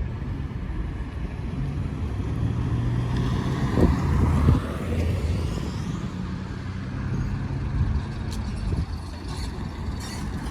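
Low rumble of heavy vehicles passing at a railroad crossing, with a steady engine drone that comes in twice, loudest about four seconds in.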